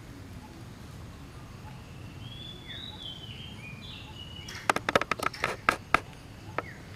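Outdoor forest ambience with a steady low background noise. About midway come a few short gliding whistled bird calls, then a quick run of sharp clicks and snaps, the loudest sounds here.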